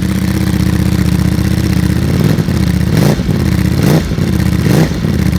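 Ducati Panigale V4S's V4 engine through an Akrapovič silencer, idling steadily and then blipped several times in quick succession, each rev rising and falling, about halfway through. Loud.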